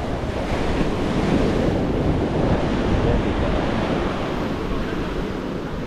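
Sea surf breaking on the beach, a steady wash that swells and then eases, with wind buffeting the microphone.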